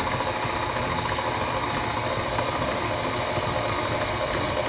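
Stand mixer motor running steadily, its dough hook working milk into flour and eggs at the start of a sweet bread dough.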